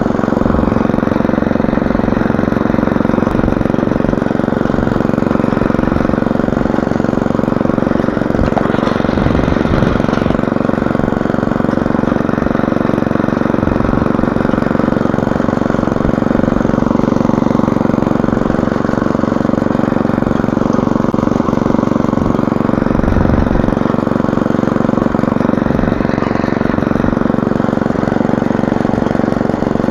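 Walk-behind motor hoe (rotary tiller) running at a steady, even speed on its small air-cooled petrol engine, its tines working the soil between crop rows.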